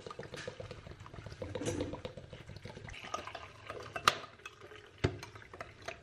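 Milk poured from a carton into a ceramic bowl of cereal, splashing and filling for the first few seconds. Two sharp knocks follow, about four and five seconds in.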